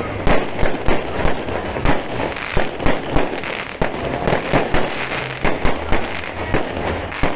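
Aerial fireworks exploding in rapid succession, many sharp bangs a second over a continuous crackling din.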